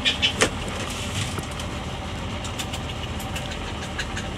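Boat engine running steadily under way, with a few sharp ticks in the first half second.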